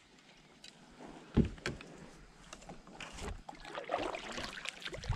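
Plastic sit-on-top kayak being handled and paddled. A single hollow thump about a second and a half in, then paddle splashes in the water with small knocks and clicks that grow louder toward the end.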